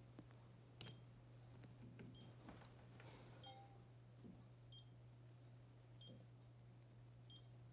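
Faint short high beeps from a handheld carbon monoxide breath monitor running a test, repeating about every second and a quarter from about two seconds in. A few light handling clicks come early, over a low steady hum.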